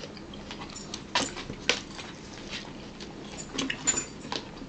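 Eating sounds at a table: a scattered handful of short clicks and mouth smacks from people chewing and handling their dishes.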